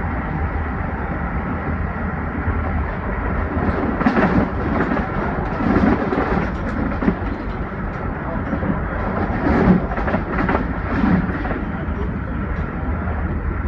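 Amtrak Acela train running, a steady rumble with several louder rattling bursts in the middle.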